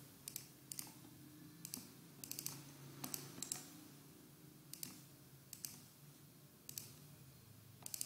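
Faint, scattered clicks of a computer mouse, some coming in quick pairs like double-clicks.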